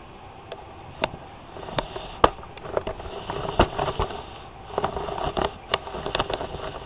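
A cat nosing and rubbing at the phone up close: rustling and scraping broken by a string of sharp clicks and bumps.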